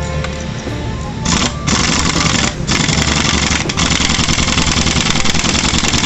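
Impact wrench hammering in several bursts, starting about a second in, as it tightens the clutch-assembly nut on a Honda Vario 125's rear pulley.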